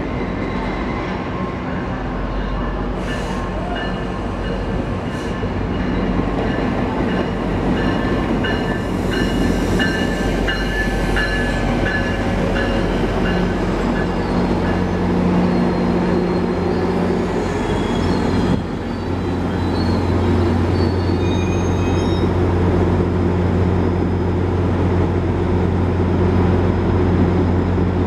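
GO Transit commuter train arriving behind MP40PH-3C diesel locomotive 648: cars rolling at speed with short, high wheel and brake squeals through the first half. About two-thirds through, the rolling noise drops and a steady low diesel drone takes over.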